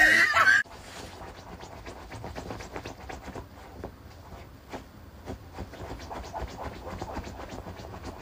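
A small white dog scratching and digging at bedding: an irregular run of short scratchy rustles. It opens with a brief loud pitched sound that cuts off sharply under a second in.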